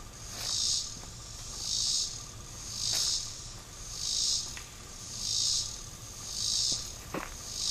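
An insect calling in even pulses, a dry high buzz of about half a second repeating roughly every second and a quarter, over a faint steady whine.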